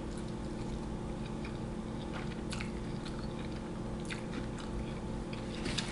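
A person chewing a mouthful of soft, cheesy chicken taco, with scattered short wet mouth clicks and smacks. A steady low hum runs underneath.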